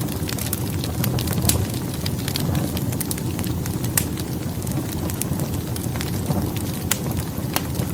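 Wood fire burning in a fireplace: a steady low rushing of flames with frequent sharp, irregular crackles and pops from the burning logs.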